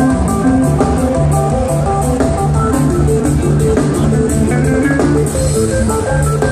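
Live jam band playing loudly, heard from the audience: electric guitar and bass repeating a riff over a drum kit with a fast, steady beat.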